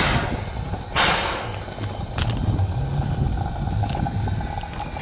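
Narrow-gauge steam locomotive 99 4801 moving off slowly: two loud exhaust chuffs of steam about a second apart, then a steady low rumble of the locomotive running on.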